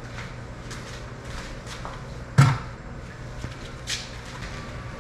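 A few scattered knocks and clicks from someone moving about a garage, the loudest a sharp thump about two and a half seconds in, over a low steady hum.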